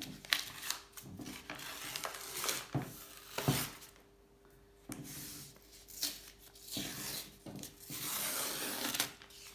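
Painter's masking tape being peeled and torn off a painted bike frame, with masking paper crinkling: a run of short rips, rustles and small knocks, and a longer steady peel near the end.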